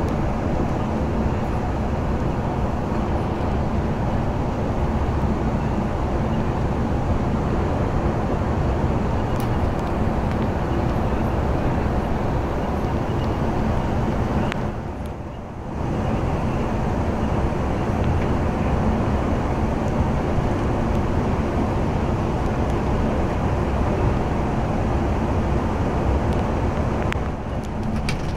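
Inside a Temsa coach cruising on a motorway: a steady engine hum with tyre and road rumble, dipping briefly about halfway through.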